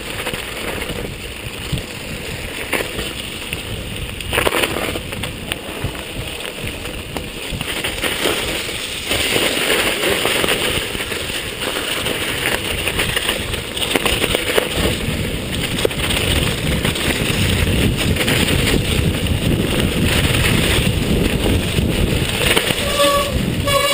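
Mountain bike being ridden over a rough, snowy dirt trail: a continuous rumble of the tyres on the ground, with rattles and knocks from the bike over bumps. It gets louder from about nine seconds in.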